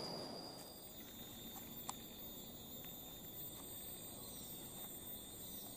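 Faint forest ambience: insects chirring steadily at a high pitch, with a light click about two seconds in.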